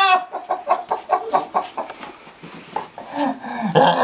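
Beagle puppy yipping and barking in rough play: a quick run of short, high calls, then louder, longer barks near the end.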